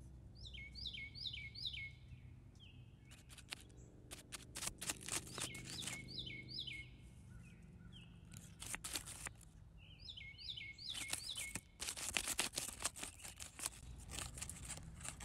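A wild bird singing a short phrase of about four quick down-slurred whistled notes, repeated three times, against a low outdoor rumble. Dry crackling clicks and rustles, loudest in the second half, run between the phrases.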